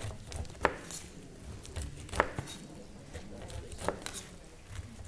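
Chef's knife cutting the rind off a whole pineapple, slicing down the sides and knocking on the cutting board, with three sharper knocks about a second and a half apart.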